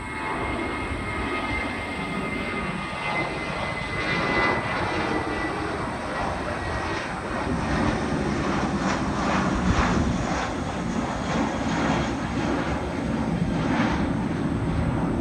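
Jet engines of a twin-engine airliner climbing out after takeoff: a steady engine noise with a faint high whine that fades out about four or five seconds in, leaving a rumbling, crackling noise as the jet pulls away.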